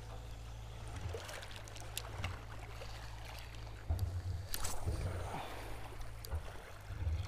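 Shallow sea water sloshing and splashing, over a steady low rumble, with a few sharp clicks.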